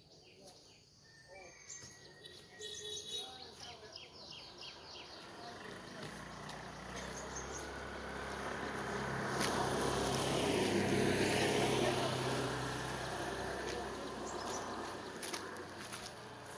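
A motor vehicle passing on the lane: a low engine hum with tyre noise that grows louder, peaks about ten seconds in, then fades away. Birds chirp near the start.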